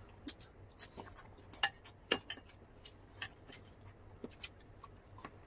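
Scattered clinks and taps of cutlery against dishes while food is picked up, with the two sharpest clinks about a second and a half and two seconds in.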